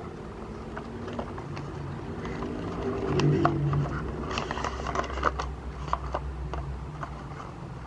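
Paper teabag sachet and thin paperboard teabag box handled: the sachet slid against the card and the box's tuck flap opened, giving scraping, crinkling and sharp little clicks of card. The handling is loudest about three seconds in and again around four to five and a half seconds.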